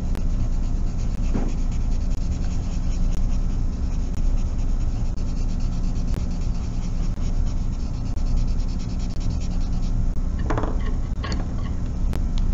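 A charcoal drawing tool rubbed lightly and continuously back and forth on drawing paper, a soft, steady scratchy rubbing, over a constant low hum.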